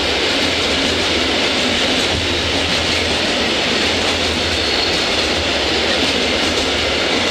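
Train of four-axle Eas open freight wagons rolling past: steady noise of steel wheels running on the rails and the wagons rattling.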